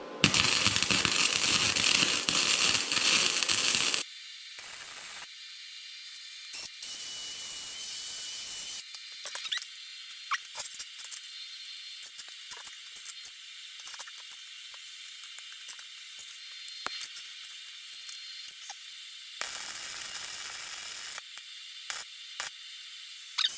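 Welding arc crackling and hissing in a loud burst of about four seconds, then quieter hiss with scattered sharp clicks and two shorter bursts of hissing, as steel angle iron is welded.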